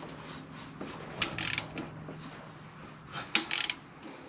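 Hand ratchet wrench clicking in two short runs, each starting with a sharp knock of metal on metal, about a second in and again near the end.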